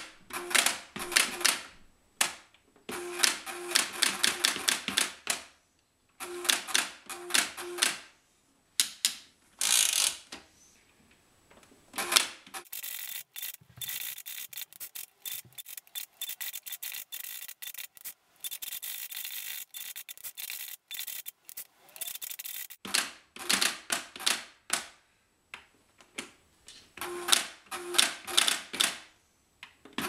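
Mehano Barbie toy typewriter being typed on: runs of quick plastic key clicks with short pauses between them. In the middle there is a stretch of about ten seconds of softer, denser, high-pitched fine clattering.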